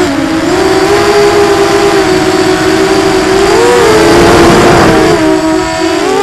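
Brushless motors and propellers of a Quadrysteria Mini Mamba V2 racing quadcopter, heard from its onboard camera: a steady buzzing whine of several motors at slightly different pitches, rising and falling with the throttle. Roughly halfway through the pitch climbs and the tones split apart as the quad banks, with a rush of air noise.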